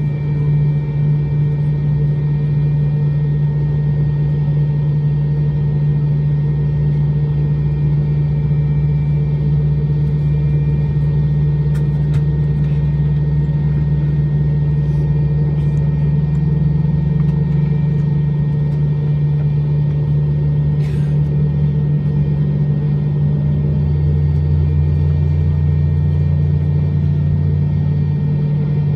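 Steady low drone inside the cabin of an MD-90 airliner standing at the gate, with the aircraft's machinery running. A deeper hum joins in about three quarters of the way through, and a faint rising whine comes in near the end.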